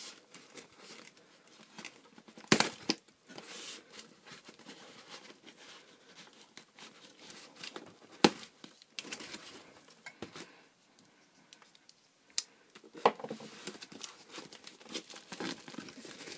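Shipping packaging being handled and opened by hand: irregular crinkling and tearing, with a few sharp knocks about two and a half, eight and thirteen seconds in.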